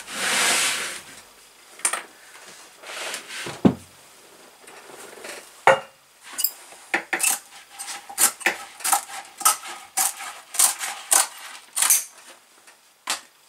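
Scissors cutting out a sheet of wall covering: a sheet rustling at the start, then a quick run of sharp snips, about three a second, from about halfway through.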